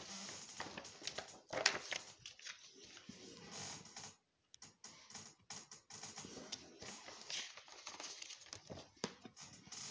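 Paper being handled close to the microphone: a magazine page rustling and crinkling, with irregular soft crackles and taps.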